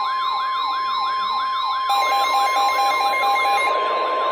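Emergency alert attention signal: a steady high warning tone layered with a siren-like tone that sweeps up in pitch about three times a second, plus intermittent beeping. It marks the start of a new severe thunderstorm warning broadcast.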